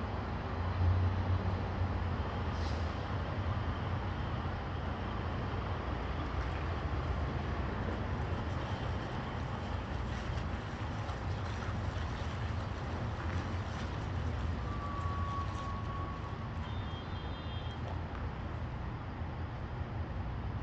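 Semi-truck's diesel engine running with a steady low rumble as the tractor-trailer manoeuvres slowly, swelling briefly about a second in. A single short steady tone sounds about fifteen seconds in.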